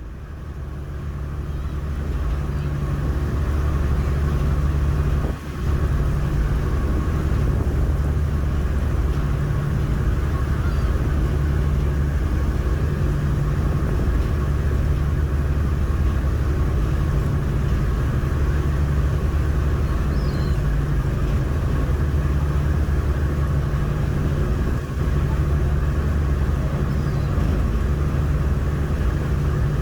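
Steady low engine drone that fades in at the start and holds even, with a brief dip about five seconds in.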